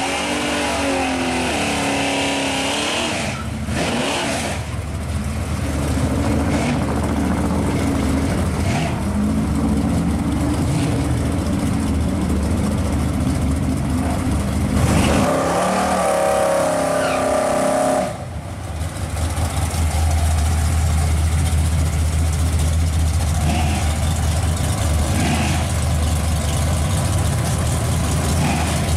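1955 Chevrolet Bel Air drag car's engine running, revved up and down near the start and again about halfway through as the car creeps forward, then settling to a steady low idle.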